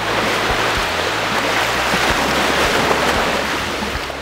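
Surf washing in and out over the shallows at the water's edge: a steady, loud rush of breaking and receding waves.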